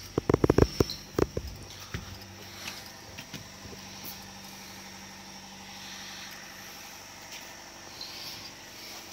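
A quick cluster of knocks and bumps in the first second and a bit, typical of a handheld phone camera being jostled, then a steady low hum with a faint high-pitched whine behind it.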